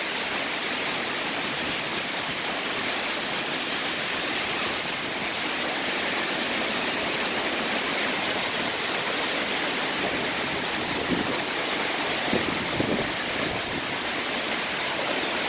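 Rain falling steadily in a constant hiss, with a few brief louder splashes a little after the middle.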